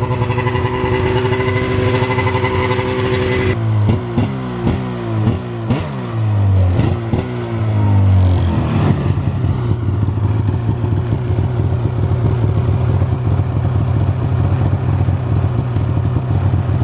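Snowmobile engine running steadily, then revved in a series of quick rises and falls in pitch for about four seconds as the sled is driven up a trailer ramp, then settling back to a steady run.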